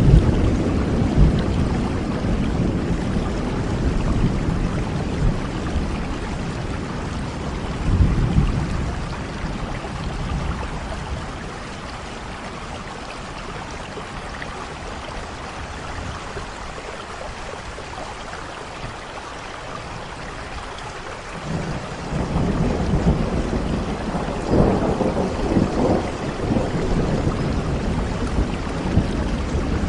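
Steady heavy rain with rolling thunder rumbling low underneath. The thunder dies away for a while in the middle and rumbles up again about two-thirds of the way through.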